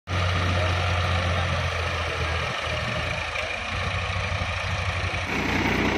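Powertrac Euro 60 tractor's diesel engine running steadily with a low hum, working the hydraulic tipper trailer. About five seconds in the sound turns coarser and less tonal.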